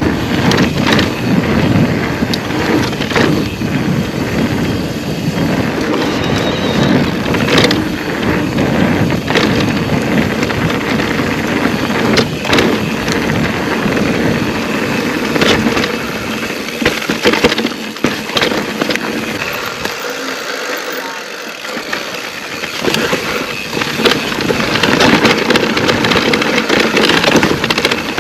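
Riding noise from a mountain bike on a gravel track: wind rushing over the microphone and tyres on loose stone, with frequent knocks and rattles over bumps. The low wind rumble drops away briefly about twenty seconds in.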